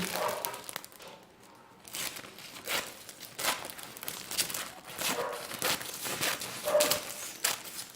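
Sheet of cellophane crinkling in irregular crackles as it is handled and cut.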